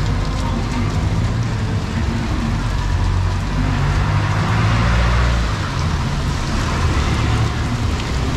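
Rainy street ambience: a motor vehicle's engine runs close by, its low hum swelling toward the middle and dropping off about two-thirds of the way through, over a steady hiss of rain and traffic.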